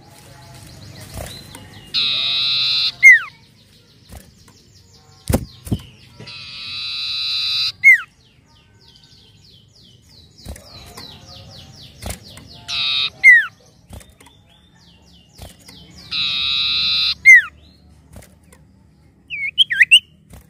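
Common iora singing. Four times, a buzzy trill about a second long ends in a sharp, loud downward-slurred whistle. Quieter ticking notes fall between the phrases, and a short chatter comes near the end.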